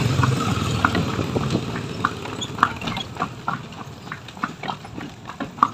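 Hooves of a horse pulling a delman, a horse-drawn cart, clip-clopping on a paved road at a steady pace, about two to three hoof strikes a second. A low motor drone fades out in the first half second.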